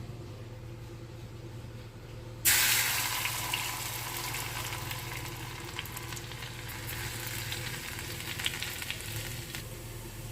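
Crushed nigella seeds and garlic hitting hot mustard oil in a pan: a sudden loud sizzle about two and a half seconds in, settling into steady sizzling with small crackles as they fry, thinning out near the end.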